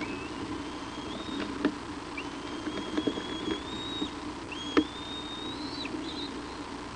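Thin, high whistled bird notes, three or four drawn-out calls in a row, some rising in pitch. A few sharp snaps and clicks, the loudest near the middle, come from the adult bald eagle tearing at a salmon head in the nest.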